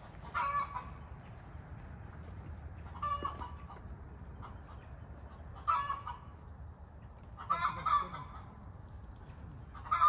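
Domestic fowl calling: four short, loud calls about every two and a half seconds, the fourth a quick double.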